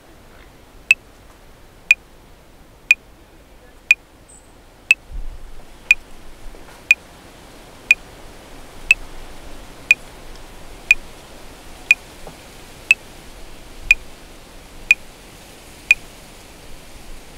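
Metronome clicking at 60 beats per minute, one sharp click a second: sixteen clicks, four bars of 4/4, then it stops. Under the clicks is a low background hiss that grows louder about five seconds in.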